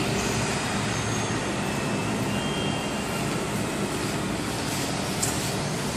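Automatic wall rendering machine running: a steady mechanical noise with a faint low hum.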